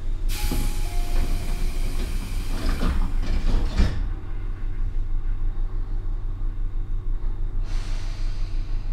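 Sliding doors of a Tobu 9000 series commuter car closing at a station stop: a hiss of air lasting about three and a half seconds that ends in a thud about four seconds in. Underneath runs the steady low hum of the car's motor-generator, and another hiss of air starts near the end.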